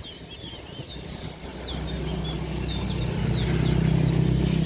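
Small finches chirping in quick runs of short, high falling notes, while a motor vehicle's engine hum builds up underneath from about two seconds in and becomes the loudest sound.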